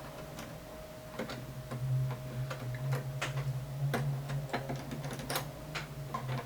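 Irregular light plastic clicks and taps as the back cover of a Realistic 32-1105 microphone mixer is worked loose, over a steady low hum.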